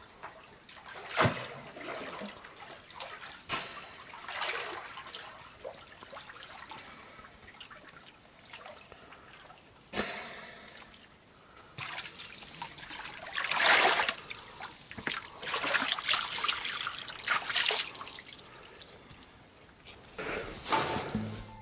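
Water trickling and splashing, with scattered drips and louder sloshing surges about two-thirds of the way in.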